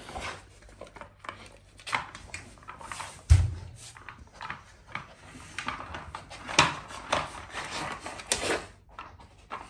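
A malamute nosing a stacked plastic puzzle feeder, its spinning layers clacking and knocking as they are pushed around on the floor, with one heavier thump a little over three seconds in.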